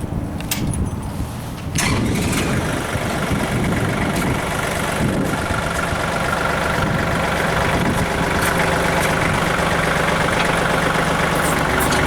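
Kubota L3800 tractor's three-cylinder diesel engine starting about two seconds in, then running steadily.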